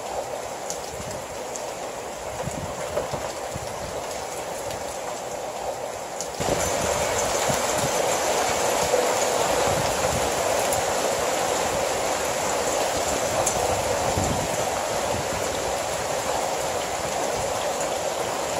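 Heavy rain pouring down, a steady hiss that gets louder about six seconds in, with scattered sharp taps.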